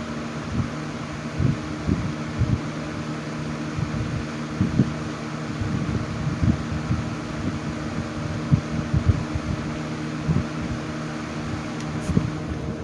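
Two vintage box fans running together on high speed: a 1980s Patton with a three-speed Fasco motor and a 1960s Frigidaire with a two-speed General Electric motor. A steady motor hum under rushing air, with irregular low thumps.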